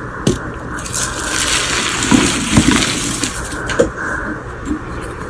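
Blocks of dyed gym chalk crushed and crumbled by hand, crunching and crackling with sharp snaps, densest about halfway through.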